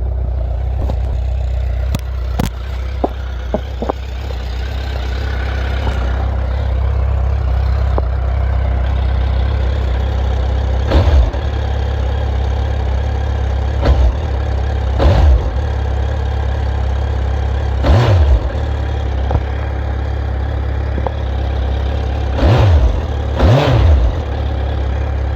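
2003 Suzuki GSF1200S Bandit's inline-four idling on its stock exhaust, with about six short throttle blips in the second half.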